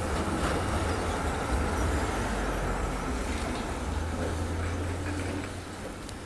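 Zurich Tram 2000 tram passing close by and pulling away: a steady low hum from its running gear and motors over a rushing noise, fading as it moves off near the end.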